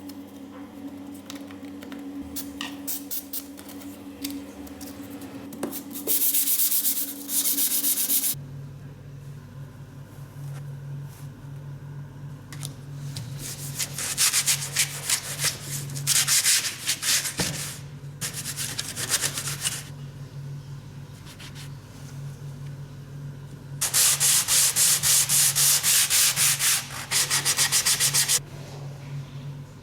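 Sandpaper rubbed hard over a surface in quick back-and-forth strokes. It comes in several spells of a few seconds each, with lighter rubbing in between, over a steady low hum.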